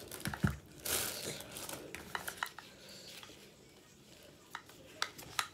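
Plastic wrapping crinkling as it is pulled off a pair of foldable over-ear headphones in the first second or so. Then a scatter of light plastic clicks and taps as the headphones are unfolded and handled.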